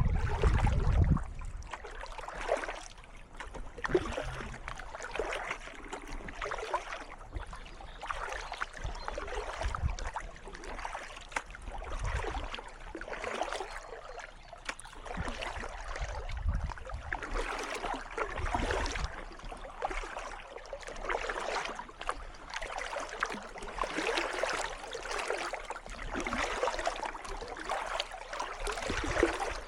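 Kayak paddle strokes dipping and splashing in calm water, one after another, with water trickling off the blades. A brief low rumble in the first second.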